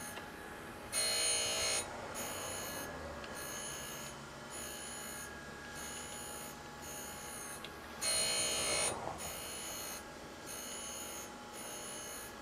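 Surface grinder running, its wheel grinding across the face of a round metal lapping plate as the table traverses back and forth to bring the plate flat. A high ringing whine pulses about once a second over a low motor hum, and grows louder twice, about a second in and about eight seconds in.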